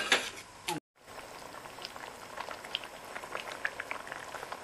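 Thick pork blood and coconut milk stew simmering in a pot, the sauce popping with small bubbles in an irregular patter. Right at the start a metal ladle knocks sharply against the pot.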